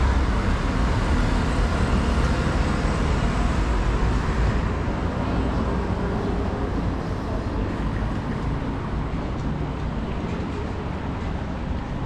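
Road traffic noise in a city street: a low vehicle rumble, loudest at the start and slowly fading.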